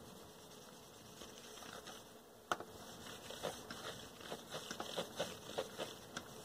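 Blue paper shop towel wiped over the Windex-sprayed faceplate and dial glass of a Nikko NR-515 receiver: faint rubbing, a sharp click about two and a half seconds in, then a run of light squeaks and ticks as the towel drags across the surface.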